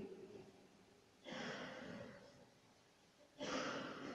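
A man breathing audibly into a close microphone, twice, each breath about a second long.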